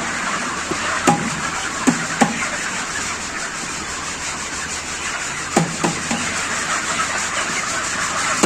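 Steady din inside a broiler chicken house, the noise of a large flock of broilers and the shed's running machinery, with a few short knocks.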